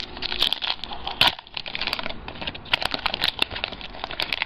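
A trading card pack's wrapper crinkling and baseball cards being handled: an irregular string of sharp crackles and clicks.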